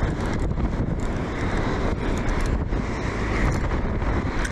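Wind buffeting the microphone in a steady low rumble, over the wash of small waves breaking on the beach.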